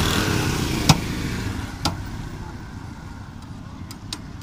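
A motorcycle passing close by, its engine noise loudest at first and fading away over the first couple of seconds. Sharp metallic clanks of a steel spatula striking the iron tawa griddle come about a second in and again near two seconds, with fainter ticks near the end.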